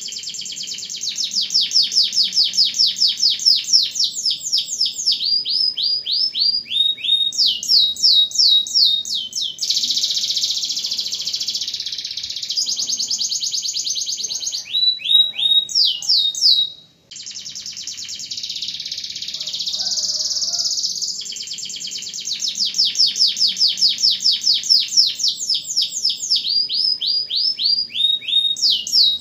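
Domestic canary singing a long song of fast, high trills and rolls, with phrases of repeated falling sweeps. The song breaks off for a moment about two-thirds through, then starts over.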